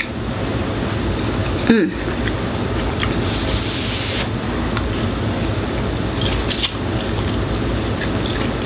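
A forkful of Indomie goreng fried instant noodles slurped in for about a second, some three seconds in, over the steady whoosh of a loud air conditioner.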